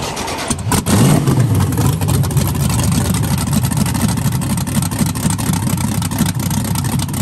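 Supercharged LS V8 engine of a VW Bug sandrail running loudly, getting louder about a second in.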